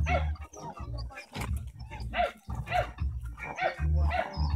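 Presa Canario puppy barking in short yaps, about two a second, as it grips and tugs a jute bite pillow. A low rumble comes and goes underneath.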